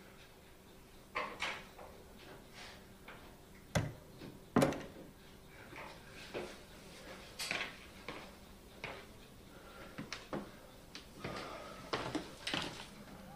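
Scattered knocks and clunks of a door being opened and shut and of footsteps moving through a house, the loudest two sharp knocks about four seconds in, over a faint steady hum.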